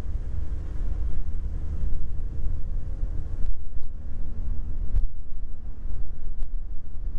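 Boat motor running steadily while under way, with heavy wind rumble on the microphone.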